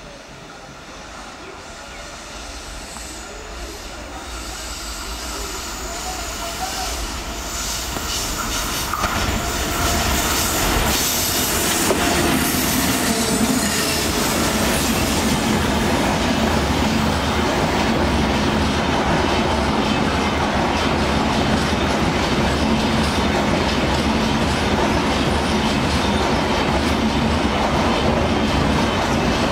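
Electric-hauled express passenger train (WAP-7 locomotive and coaches) approaching and passing at speed. Its rumble grows louder over the first ten seconds or so. The locomotive goes by, followed by the steady rolling noise of the coaches and their wheels.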